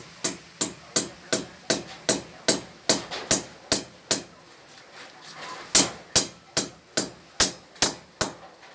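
Hammer striking the steel frame of a window grill as it is fitted into a concrete wall opening: sharp, ringing metallic strikes at about two and a half a second, stopping for about a second and a half midway, then resuming.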